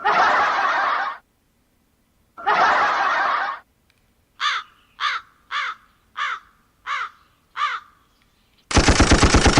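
Sound-effect samples played back through a phone live-streaming sound card. There are two short bursts of applause, then a crow cawing seven times in quick succession, each caw falling in pitch. Near the end comes about a second of a loud, buzzy effect.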